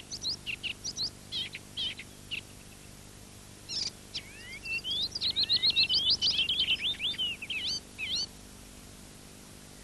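Small songbirds singing and chirping: short scattered high calls for the first couple of seconds, then a busy run of quick, sweeping notes from about four seconds in, stopping a little after eight seconds.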